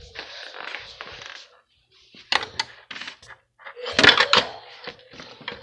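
Handling noise: rustling, then a scatter of sharp clicks and clattering knocks, loudest about four seconds in, as hard objects are moved and set down.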